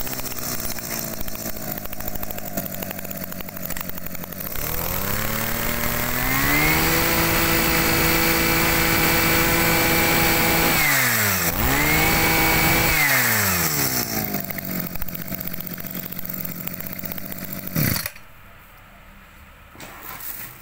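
Small two-stroke brush cutter engine idling, then revved to full throttle and held for about five seconds, dropped back, blipped up briefly once more and returned to idle. It cuts off with a click near the end.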